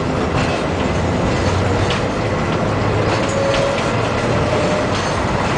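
Tram running along the track, heard from on board: a steady rumble of wheels and motors with a few short clicks as the wheels pass over rail joints and crossings. A faint, brief whine comes through about three seconds in.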